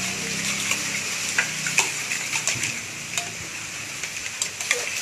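Spoon stirring a wet, half-set slime mixture in a container. It makes a steady wet, crackly hiss, with sharp clicks every second or so as the spoon knocks the container. The mixture is at the stage of being stirred until it thickens.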